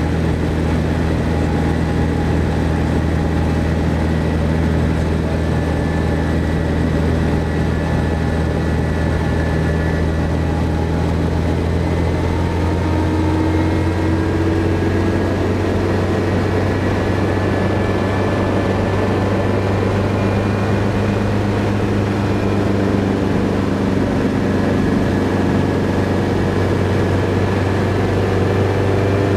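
Helicopter engine and rotor running steadily: a loud, even low drone with faint higher whining tones that drift a little in pitch.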